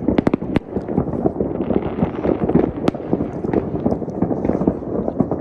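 Fireworks going off: a rapid, irregular series of sharp cracks and pops over a continuous rumble.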